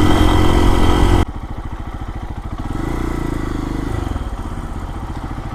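Single-cylinder four-stroke engine of a Lifan KPX250 motorcycle running under way with wind noise. About a second in it cuts abruptly to a quieter, steady idle with an even, rapid firing pulse.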